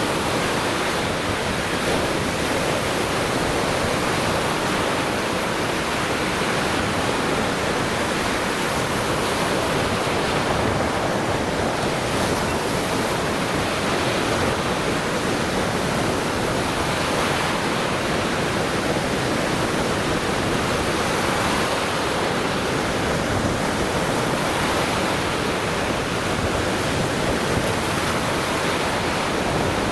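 Lake Michigan surf breaking on the shore: a steady, unbroken wash of waves.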